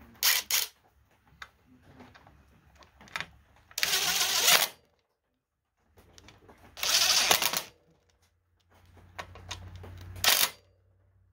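DeWalt cordless impact driver running in the regulator rectifier's mounting bolts in several short bursts of rapid rattling impacts, the longest about a second. A low motor hum is heard just before the last burst.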